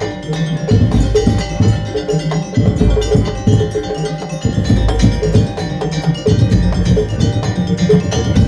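Madurese ul daul (tong-tong) percussion ensemble playing a fast rhythm: heavy drum beats and wooden knocks under ringing gong and bell-like tones.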